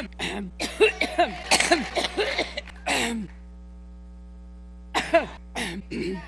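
A woman coughing in a fit of short, rapid coughs, stopping for about a second and a half, then coughing again near the end. A steady electrical hum runs underneath.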